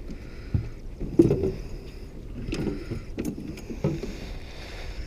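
Scattered knocks and clicks of a fishing rod and tackle being handled against a small plastic boat's hull, about five in a few seconds, over a low rumble.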